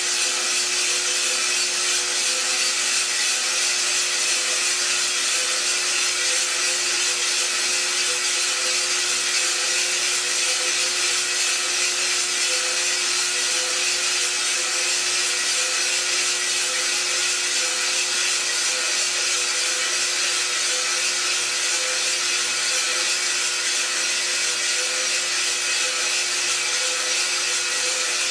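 Iroaster600 coffee roaster running: its motor hums steadily while green coffee beans tumble and rub against the drum with an even hiss. The beans are still green early in the roast, and no cracking is heard yet.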